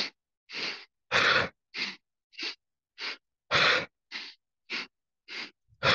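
A man's yoga breath of joy: three short, sharp sniffing inhales through the nose, then one loud, forceful exhale out of the mouth. The cycle repeats about every two and a half seconds.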